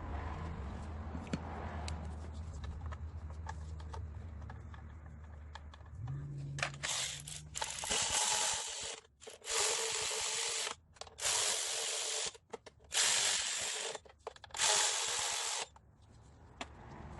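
A cordless power tool runs in about six short bursts of roughly a second each, in the way the top timing cover bolts are run in. Before the bursts there is a steady low hum with light clicks.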